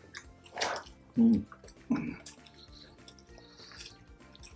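Wet eating sounds from people eating with their hands, smacking and chewing, over background music. There are two short, loud voice sounds, one about a second in and one about two seconds in.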